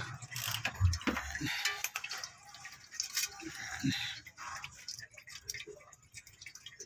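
Diesel fuel trickling and dripping from a Chevrolet Duramax's loosened fuel filter housing into a pan below, with scattered light clicks and knocks of hands and tools on the housing.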